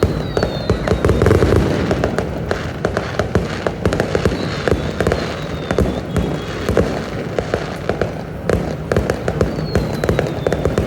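Fireworks going off in rapid succession: a dense run of sharp cracks and bangs with no let-up, with a few short falling whistles.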